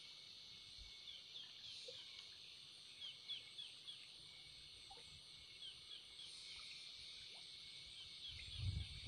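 Faint outdoor ambience: a small bird calling in short runs of three to five quick falling chirps, over a steady high hiss. A low thump near the end.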